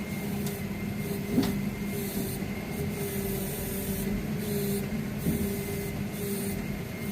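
Tow truck's engine and winch running steadily with a mechanical hum and whine while pulling on a bent truck frame. One short clank comes about a second and a half in.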